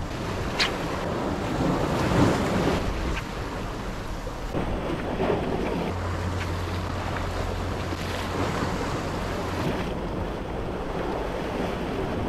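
Sea waves breaking and washing over shore rocks, with wind buffeting the microphone. A low steady hum comes in for a few seconds past the middle.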